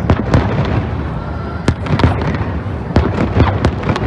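Fireworks display going off: a rapid run of sharp bangs and crackling reports, several a second, over a continuous rumble of explosions.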